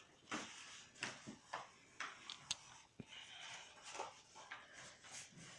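Faint scratching of quick, short drawing strokes on paper, coming at irregular intervals, with a couple of sharp ticks among them.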